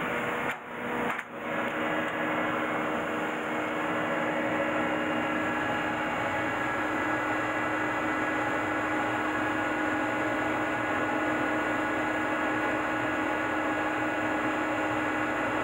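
Steady whir and hum of running industrial machinery and fans, with several constant tones and two brief dips about half a second and a second in.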